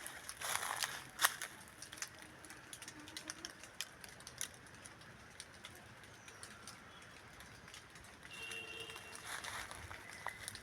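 Footsteps crunching on dry fallen leaves for the first second or so, then quieter forest ambience with scattered small leaf crackles and a brief bird call about eight and a half seconds in.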